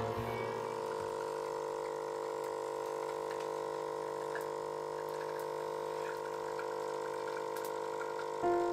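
Background music: a soft chord of several notes held steadily, with piano notes coming in near the end.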